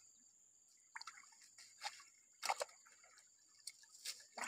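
A few small, scattered splashes and drips of water as hands grope through shallow stream water, quiet between them.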